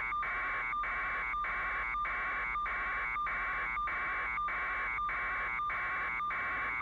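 Steady electronic buzz with a fixed tone in it, cut by brief dropouts a little under twice a second: interference on the news helicopter's audio feed.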